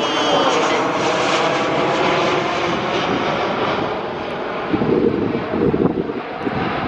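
Airplane flying low overhead: a loud, steady engine noise with whining tones that fall in pitch at the start as it passes.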